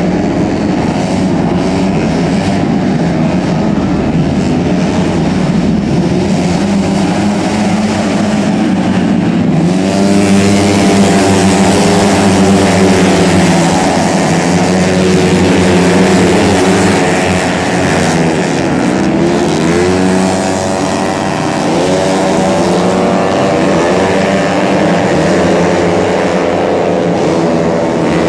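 Tuned 130 cc automatic racing scooters running hard, their engine notes repeatedly rising and falling as they accelerate and back off, with several bikes overlapping from about ten seconds in.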